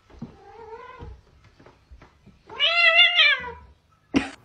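A domestic cat meowing: a softer call early on, then one loud drawn-out meow that rises and falls in pitch. A short sharp knock comes near the end.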